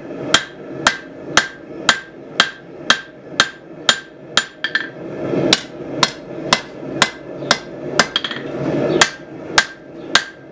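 Hammer blows on a red-hot steel knife blade on an anvil, an even rhythm of about two strikes a second, each with a short metallic ring from the anvil. The blade is being forged to shape.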